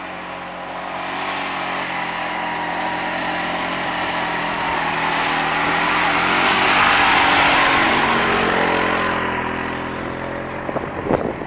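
Polaris 570 off-road machine's engine passing by on a dirt trail, growing louder to a peak about seven seconds in and then fading away.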